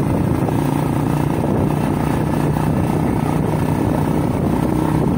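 Motorcycle engine running steadily while riding at an even speed, with a rough low rumble beneath it.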